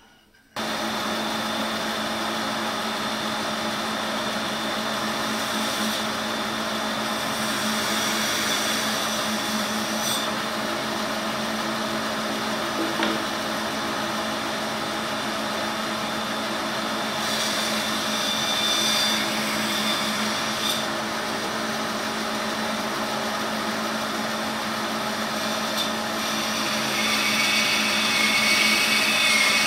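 Laguna bandsaw running with a steady motor hum while its blade saws a curve through a thick wooden block; the sound grows a little louder near the end.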